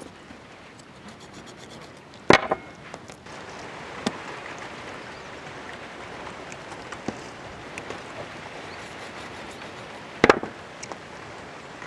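Sharp knocks on the cleaning tray as a knife and pearl spot fish are handled during scaling and gutting: two loud ones, about two seconds in and near the end, a softer one between, and a few light clicks. A steady low hiss sits underneath throughout.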